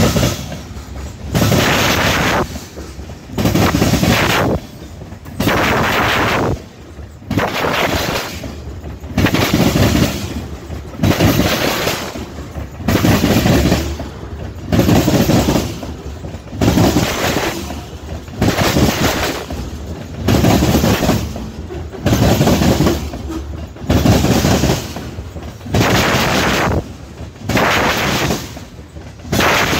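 Covered hopper cars of a grain train rolling past close by, their wheels clattering over the rail joints in a steady rhythm, a loud clatter about every second and a half.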